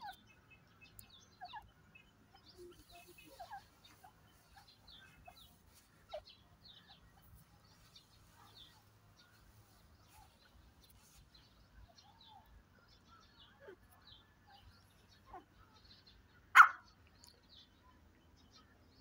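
Grey francolin giving soft, short calls while it forages, among scattered faint bird chirps, with one much louder brief call near the end.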